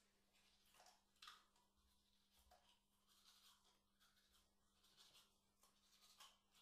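Faint scratching of a toothbrush scrubbing teeth in short, irregular strokes, over a low steady hum.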